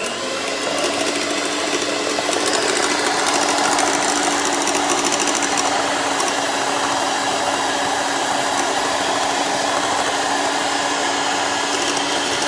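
Kenwood electric hand mixer running at a steady speed, its beaters whisking egg whites in a stainless steel bowl, with a steady motor hum of one even pitch.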